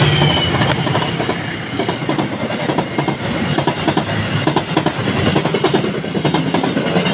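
Passenger train hauled by two diesel locomotives passing close by. The locomotives' engine drone fades about a second in, and the coaches roll past with a steady clatter of wheels over rail joints.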